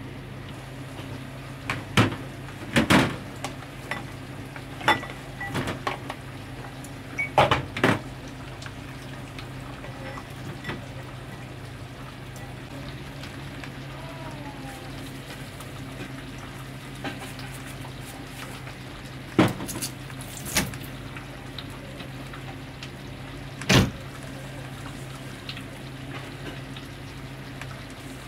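Kitchen handling sounds: knocks and clinks of cookware and utensils over a steady low hum, with a cluster in the first eight seconds and a few more later on.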